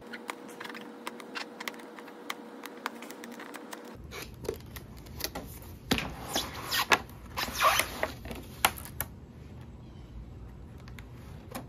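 Cardboard model-aircraft box being opened and a clear plastic tray slid out of it: scattered small clicks and taps of handling at first, then a louder stretch of scraping and crinkling about six seconds in.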